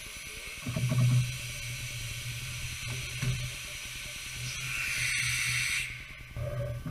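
A steady hiss over a low hum, with a short, louder low rumble about a second in; the hiss grows louder, then cuts off suddenly just before the end.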